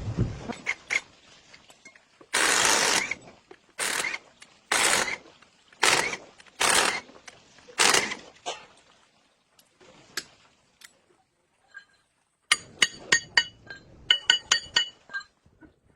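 Repair work with metal tools: about six short noisy strokes, then, near the end, a quick run of sharp metallic clicks and clinks with a ratcheting character.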